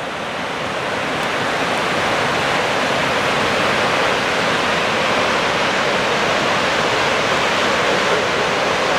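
Whitewater of Lava Falls rapid on the Colorado River rushing steadily, growing a little louder over the first two seconds.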